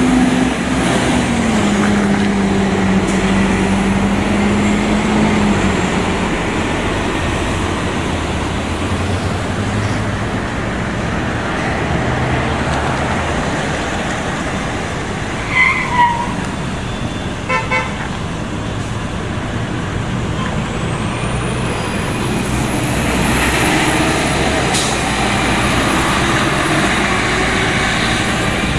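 Transit buses running and pulling past, a steady engine drone over traffic noise, with two short horn toots about halfway through followed by a quick run of short beeps.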